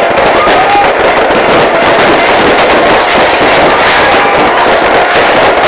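Fireworks display: a loud, continuous crackling and popping of many fireworks going off at once, with no break.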